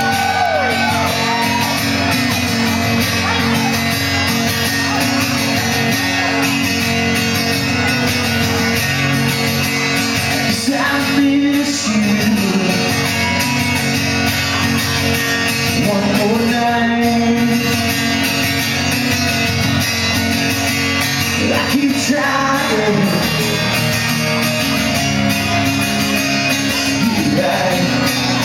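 Live band music with voices singing and shouting over it.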